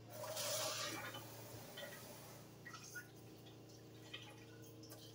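Water running into an emptied jar of pasta sauce for about a second, to rinse out the sauce left inside, then faint drips and light taps.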